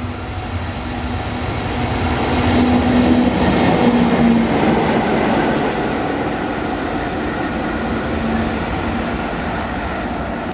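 Train running past at close range: a steady hum over rail and running noise that builds to its loudest about three to four seconds in, then holds.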